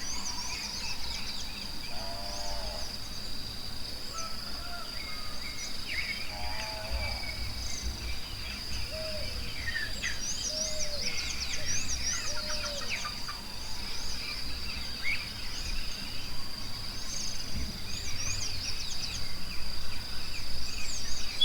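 Forest ambience: many birds chirping and calling over a steady, high-pitched insect drone, with a few lower, hoarser calls every few seconds.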